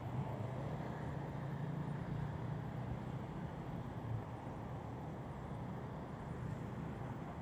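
Steady city road traffic: cars passing on a multi-lane road, a continuous low-pitched noise of engines and tyres with no single event standing out.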